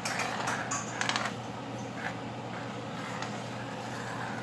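A pot of rasam on the boil on the stove: a steady low hum, with a few light metallic clicks and clinks about a second in and single faint ticks near two and three seconds.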